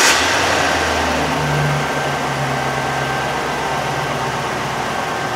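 Chevy Silverado 5.3L V8 idling cold just after starting, steady under a constant hiss, its idle pitch easing down slightly about two seconds in.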